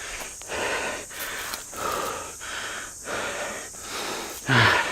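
A person panting hard after a steep uphill climb with a heavy backpack: quick, rasping breaths in and out, about two a second, out of breath. A louder, voiced exhale comes near the end.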